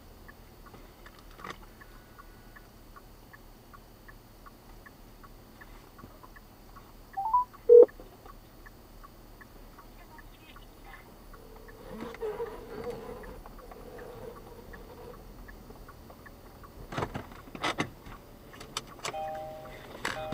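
Quiet car cabin with a low steady hum and an even tick about twice a second for the first half. About eight seconds in comes a short loud sound that rises in pitch and then drops. A steady tone follows for a few seconds, and a few sharp knocks come near the end.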